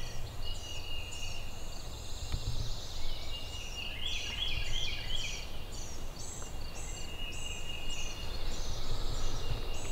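Songbirds singing in the dawn chorus: many short high notes repeated a few times a second, over a low steady rumble.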